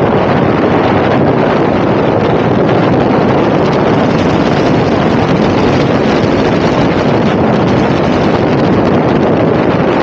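Loud, steady wind rush on the microphone of a camera riding on a moving scooter, with the scooter's running noise mixed in beneath it.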